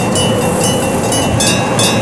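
Japanese railroad crossing warning alarms dinging about three times a second over a steady low rumble. About a second and a half in, the alarm switches to a different crossing's bell with a different pitch.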